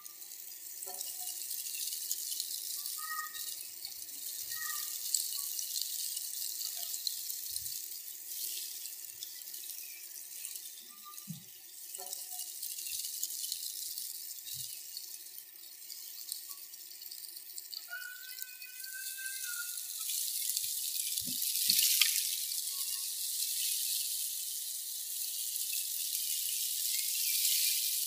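Gusty wind rustling dry flower petals and leaves: a steady high hiss that swells and eases with the gusts, with a sharper rush about 22 seconds in.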